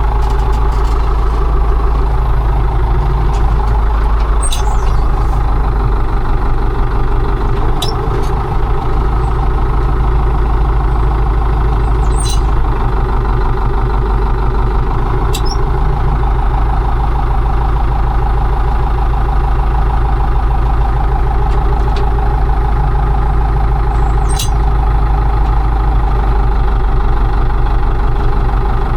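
Combine harvester's diesel engine running steadily under load, with about five short high squeaks scattered through.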